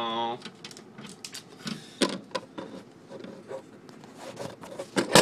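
Handling noise of a phone being pushed in and set down inside a fridge: a scatter of irregular clicks, taps and rubs on the microphone, with one louder knock near the end.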